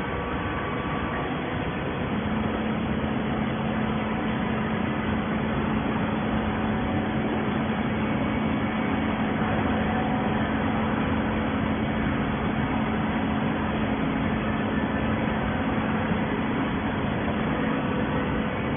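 Steady industrial machinery running, a constant rushing noise with a low, even hum that sets in about two seconds in.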